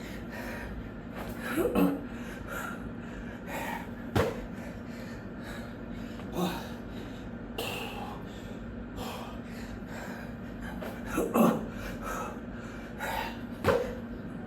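A man's hard, heavy breathing with loud gasping exhales every couple of seconds during burpees, and a couple of sharp thumps, over a steady low hum.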